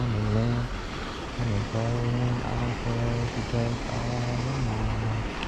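A man's low wordless humming in short phrases, each held on a steady low pitch with brief slides between notes.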